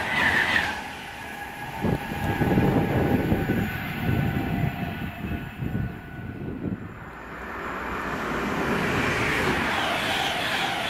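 InterCity 225 express of Mark 4 coaches passing at speed. Its last coaches rush by with a high steady whine that stops within the first second, and then it rumbles in low gusts as it runs away. From about eight seconds in, another train's approach grows louder.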